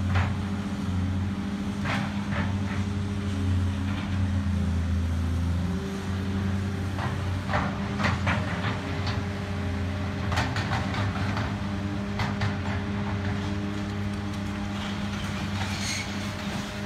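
Caterpillar 330D hydraulic excavator's diesel engine running steadily under load, with scattered crashes and clatters of broken concrete block and brick as its bucket tears into a masonry wall, the biggest clusters about two seconds in and again around seven to twelve seconds in.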